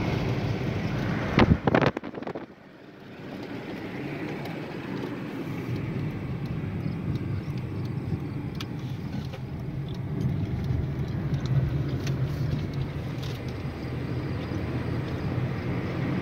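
A car driving, heard from inside the cabin: steady road and engine noise. A couple of sharp knocks about a second and a half in, then the noise drops briefly and builds back up.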